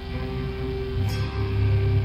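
Live hardcore metal band playing, with electric guitar notes held and ringing. About a second in, the sound gets louder and heavier in the low end.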